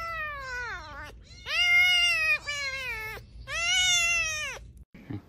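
A very young kitten mewing, about four drawn-out high-pitched mews, each rising then falling in pitch.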